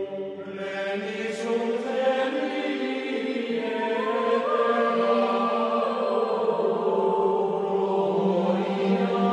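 Background music: slow choral chant of sustained voices, the held notes shifting in pitch every few seconds.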